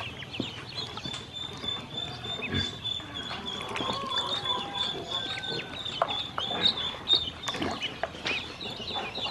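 A group of ducklings peeping continually, many short high calls overlapping, with small splashes and knocks from the birds moving about in the water, the loudest near the end.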